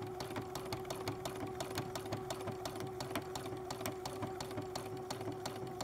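Domestic sewing machine stitching free-motion embroidery at a steady speed: an even motor hum under a rapid, regular clicking of the needle strokes.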